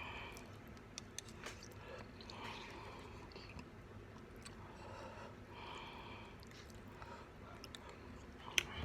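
Quiet chewing of food with small wet mouth clicks, and one sharper click near the end.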